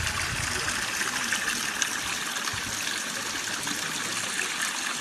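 Steady rush of running water from a rocky mountain stream near a waterfall.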